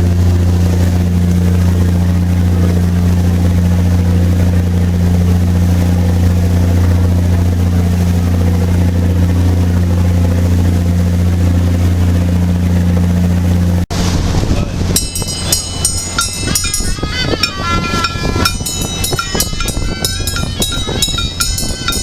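A boat's engine running at a steady low hum. It cuts off abruptly about two-thirds of the way in, and a different sound follows: quickly shifting high pitched notes over dense, clattering strikes.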